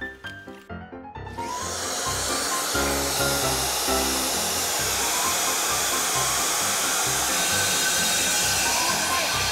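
Electric diamond core drill starting up about a second in, then running steadily with a dense, even noise that cuts off abruptly at the end. Background music with a beat plays underneath.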